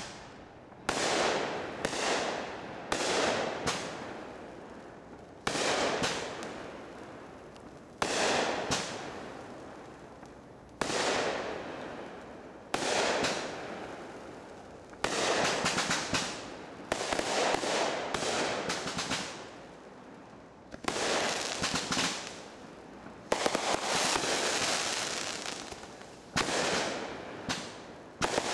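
Consumer aerial fireworks bursting, about fifteen bangs one to three seconds apart and coming thicker in the second half. Each bang trails off over a second or two.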